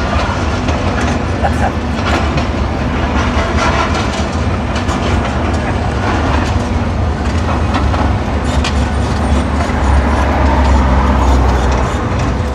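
Heavy diesel demolition machinery running with a steady low rumble, broken by frequent metallic clanks and crunches. The engine gets louder about ten seconds in.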